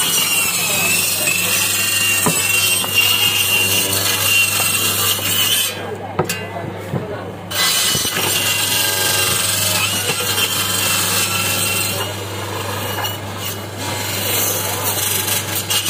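Homemade bone-cutting saw with its blade set through a wooden table, its motor running with a steady hum while bone and meat are pushed into the blade. A high, wavering whine from the cutting drops out briefly about six seconds in, then returns.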